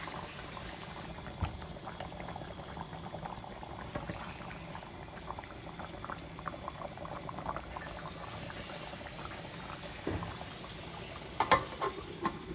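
Fish curry boiling in a stainless steel pot: a steady bubbling with many small pops. Near the end a few clinks as the metal pot lid is handled.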